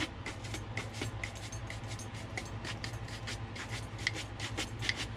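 Horsehair shoe brush buffing a waxed elephant-skin boot in quick back-and-forth strokes, a rapid run of short brushing swishes, several a second, over a steady low hum. The friction is warming the wax polish to bring up a shine.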